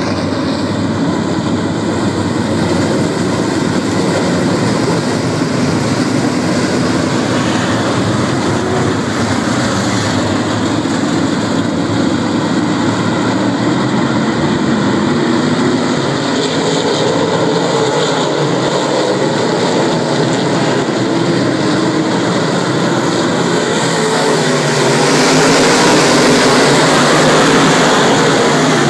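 A field of dirt modified race cars with their engines running together in a loud, steady, blended drone. It swells louder about 25 seconds in as the pack comes close.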